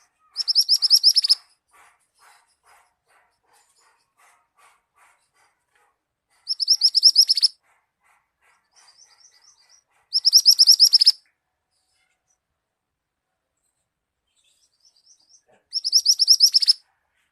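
A songbird singing four loud, fast, high trills of about a second each, several seconds apart, with soft rapid ticking calls in between. It is a masteran recording, bird song played to train cage songbirds for singing contests.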